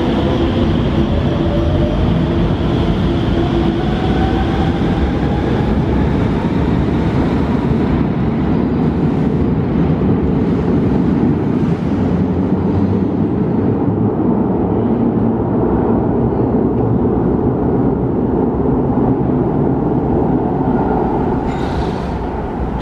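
Vienna type T light-rail train pulling away: its traction inverters whine in several tones that rise in pitch over the first few seconds as it accelerates, over the heavy rumble of the train. The rumble carries on as the train runs into the tunnel, and drops off near the end. The whine comes from the train's newly fitted traction inverters.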